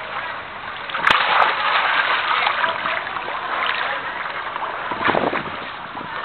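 Shallow sea water sloshing and splashing around a wading person, a steady watery noise with louder splashes about a second in and again near the end.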